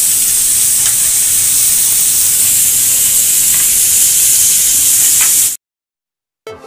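Marinated chicken tikka legs sizzling in oil on a ridged grill pan: a steady high hiss with a few faint pops. It cuts off suddenly near the end, and music begins just after.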